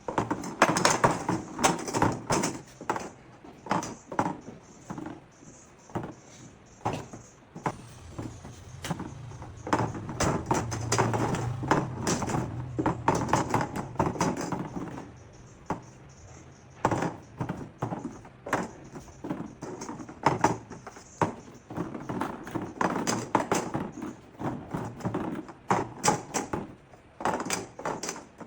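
A run of irregular knocks and clatter, sharp and uneven in spacing, with a low hum in the middle stretch.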